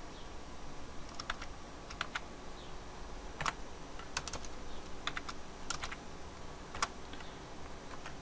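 Computer keyboard being typed on: about a dozen separate, irregularly spaced keystrokes.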